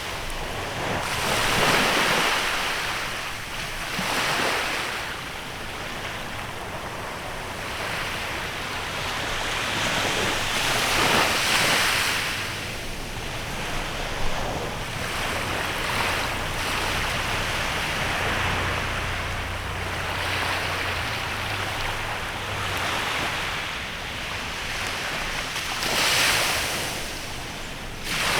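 Waves washing onto a beach in a bay, each swelling and falling away every few seconds.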